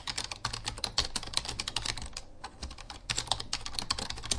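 Computer keyboard typing sound, a rapid run of key clicks that paces the on-screen text as it appears, with a brief pause a little over two seconds in.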